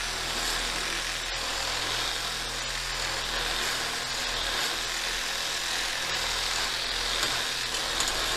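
A corded reciprocating saw driving a file back and forth inside a square steel tube, running steadily as the file grinds down the tube's internal welded seam.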